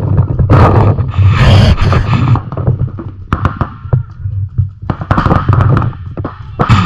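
Heavy wind rumble on the camera microphone, easing for a moment midway, with the sharp irregular pops of paintball markers firing in a speedball game.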